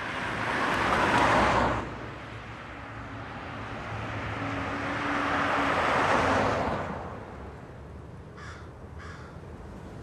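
Street traffic: cars passing by, one swelling about a second in and cutting off abruptly, another rising and fading around six seconds. Near the end come two short animal calls.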